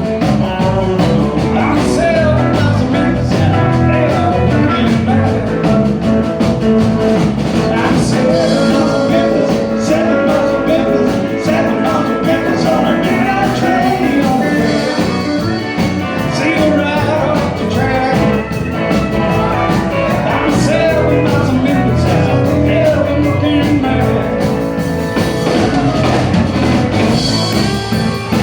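A live country band playing a song with electric guitar and a steady drum beat.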